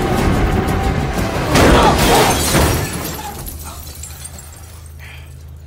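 Tense film score music, broken about a second and a half in by a loud crash with a shattering noise that lasts about a second. The music then dies away, leaving a low steady hum.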